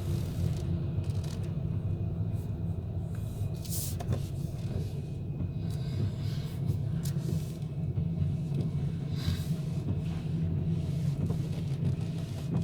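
Ship's engines giving a steady low rumble, with a couple of brief hissy gusts about four and nine seconds in.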